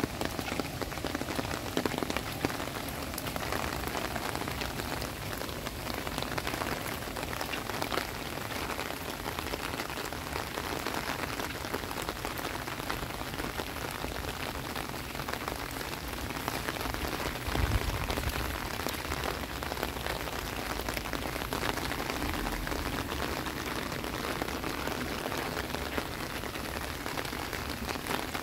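Heavy rain falling on floodwater and foliage: a steady hiss of countless drops pattering on the water surface. One brief low thump comes about two-thirds of the way through.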